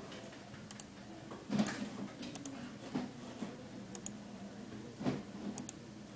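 Computer mouse clicking: four quick double clicks spread through, with a few duller knocks, the loudest about a second and a half in, over a low steady hum.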